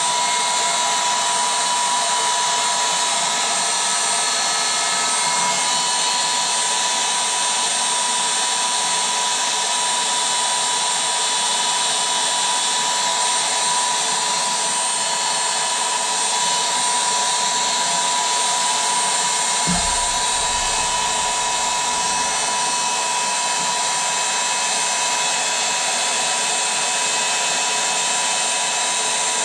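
Electric air pump running steadily with a constant high whine, inflating an inflatable. A low bump about two-thirds of the way through.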